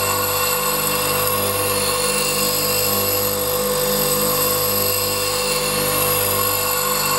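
Bench grinder running steadily while the edge of a scissor blade is ground on its stone wheel: an even motor sound with several fixed tones and a hiss of grinding, unchanging throughout.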